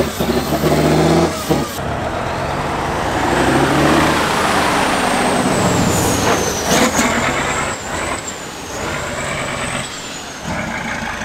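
Diesel engine of an off-road trial truck working hard as the truck churns through deep mud, with a high whine that slowly falls in pitch and a few sharp knocks around the middle.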